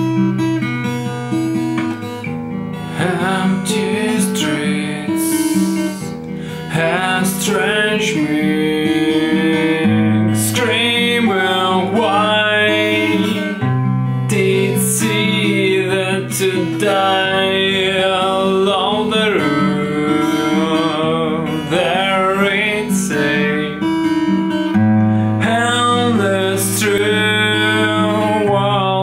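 A man singing to his own acoustic guitar. The guitar plays chords throughout, and the voice comes in about two seconds in.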